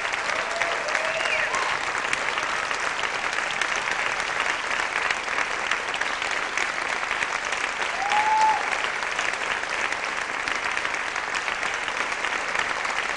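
Theatre audience applauding steadily at a curtain call, with a few short cheers rising above the clapping near the start and about eight seconds in.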